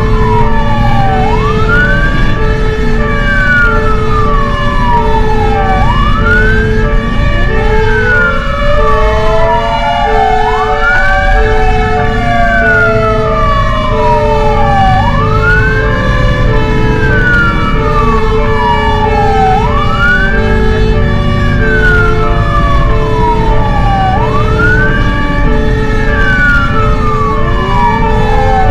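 Fire engine siren wailing on a call: each cycle rises quickly and then falls slowly, repeating about every four and a half seconds. Under it are a steady pulsing tone and a low engine and road rumble, and a second siren glides in faintly about ten seconds in.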